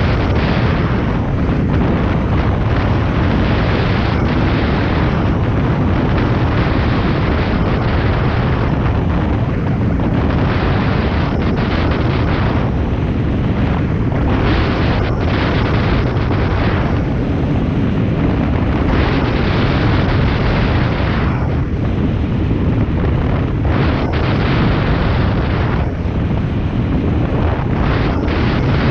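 Loud wind buffeting on the microphone from airflow in hang glider flight: a continuous heavy rush, strongest in the low rumble, that swells and eases every few seconds.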